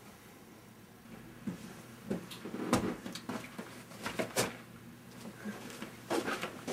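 Scattered soft knocks and bumps in a small bedroom: a door being opened and someone walking in. The two sharpest knocks come a little before the middle and just after it, with a few more near the end.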